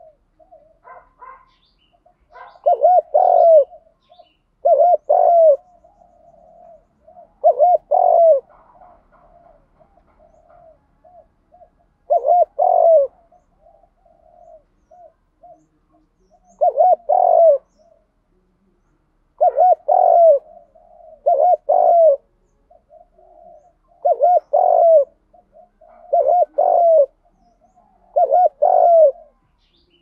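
Spotted dove cooing: about ten loud phrases of two or three rounded notes, repeated every two to four seconds, with softer coos between them. This is the competitive 'gù đấu' (challenge coo).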